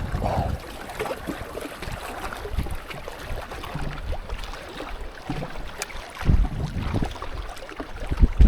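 Strong, gusty wind buffeting the microphone: an uneven low rumble that swells and falls, with two stronger gusts near the end.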